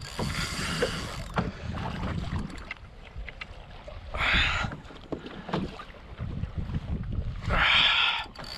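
Wind buffeting the microphone over a steady low rumble, with water sloshing against a kayak hull. It comes in rushing swells: one at the start, one about four seconds in, and the strongest near the end.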